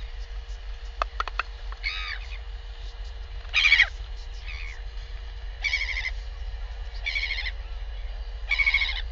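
Northern royal albatross calling: a series of five short, high calls about a second and a half apart, the loudest about three and a half seconds in.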